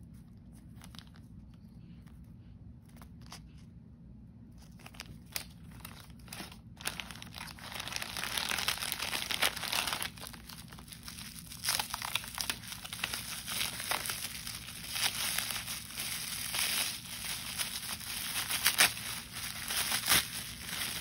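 Plastic zip-lock bag and bubble wrap crinkling under the hands as a watch is unwrapped. For the first several seconds there are only faint handling ticks; from about seven seconds in the crinkling is steady and louder, with a few sharper crackles near the end.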